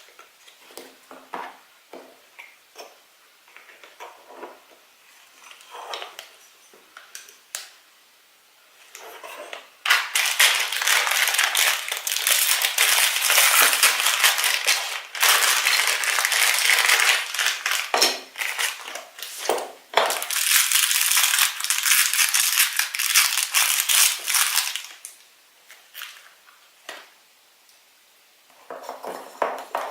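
Plastic toy packaging being handled and opened: a few light clicks and rustles, then about fifteen seconds of loud, steady crinkling of a foil or plastic wrapper, and more rustling near the end.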